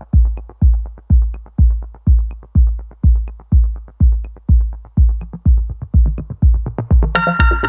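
Electronic dance music: a steady kick drum beating about twice a second with a light tick above it, and a synth line coming in near the end.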